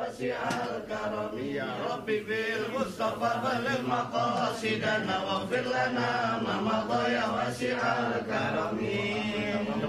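A voice chanting an Islamic prayer (doa) while the group prays with raised hands.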